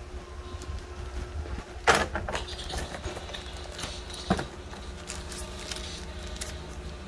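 Unboxing handling sounds: items are set down on a wooden table with a sharp knock about two seconds in and another just after four seconds. Paper and plastic packaging rustles and clicks between the knocks, over a steady low hum.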